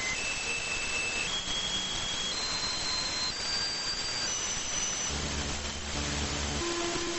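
Radio receiver on 146.328 MHz giving a steady hiss with a run of steady tones laid over it, each about a second long, stepping up in pitch one after another. About five seconds in, a low buzzing tone takes over, then a lower steady tone near the end.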